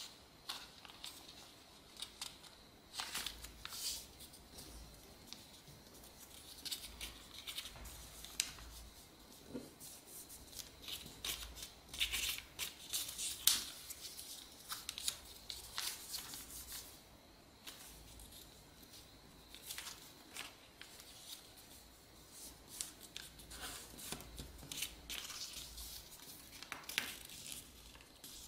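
A sheet of white A4 paper being folded and creased by hand: irregular rustling and scraping with many short, crisp strokes as the folds are pressed flat.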